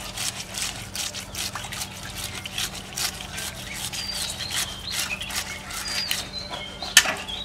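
Fish being scaled and cleaned with knives on a wet stone slab: repeated short scraping strokes, a few a second, with one sharper knock near the end.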